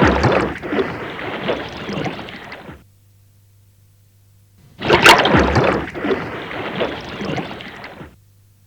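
Plucked chicken carcasses dropping off the processing-line hangers into a chilling tank of water: a splash and about three seconds of sloshing water. The sloshing stops about three seconds in, and a fresh splash comes about five seconds in and dies away near the end.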